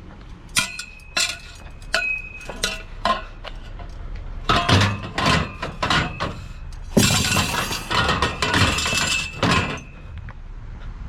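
Hard junk being handled and tossed together: a run of sharp clinks and clanks that ring briefly, then a longer clattering crash from about seven seconds in.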